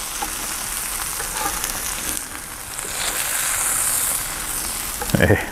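Savoy cabbage rolls sizzling on the hot Klappo tabletop grill as they are lifted off with a spatula: a steady hiss that swells a little in the middle.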